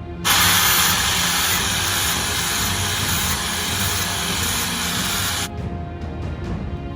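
Stick-welding arc hissing and crackling steadily for about five seconds, starting and cutting off abruptly, over background music.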